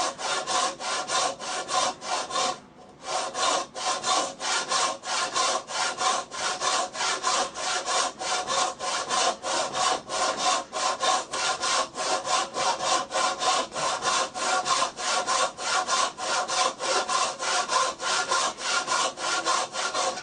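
Hand saw cutting wood in quick, even back-and-forth strokes, about three a second, with a brief pause about two and a half seconds in. The saw is scoring a shallow kerf along a marked line to set out the shoulder of a tenon joint.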